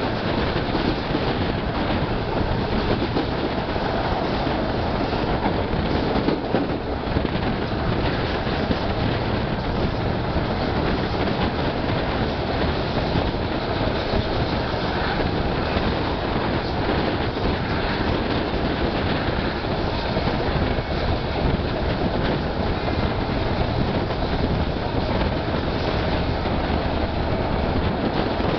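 Passenger train of the Vitória-Minas Railway running along the track, heard from aboard a coach: a steady rumble of the wheels on the rails and the carriage in motion.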